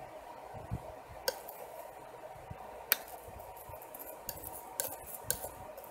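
Oil paint being mixed on a palette: several light, sharp taps and clicks of the mixing tool against the palette, spaced a second or so apart, over a faint steady hum.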